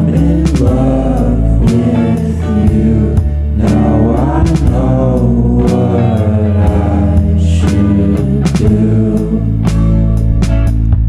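Background music: a song with a sung vocal over guitar, bass and a steady beat.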